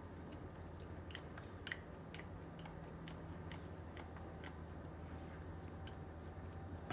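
Faint, irregular small clicks and taps of a hex driver and metal bolts being handled and threaded in, over a steady low hum.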